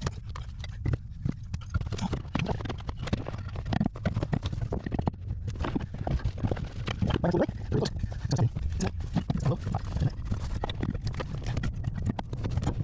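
Irregular metallic knocking and clattering of hand tools and metal parts being handled and fitted, with no steady machine running.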